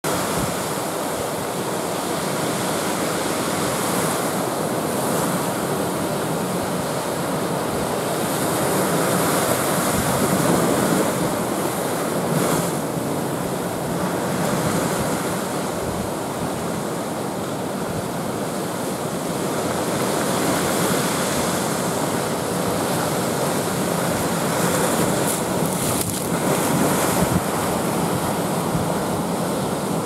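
Heavy typhoon surf breaking over rocks and a concrete breakwater: a continuous rush of churning water that swells and eases as the waves break, with wind buffeting the microphone.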